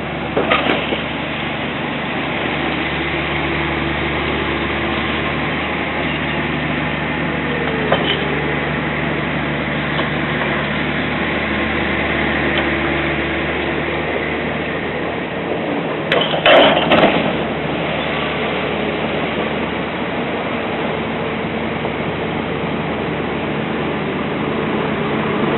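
Steady engine drone of a vehicle, with a brief louder clatter about sixteen seconds in.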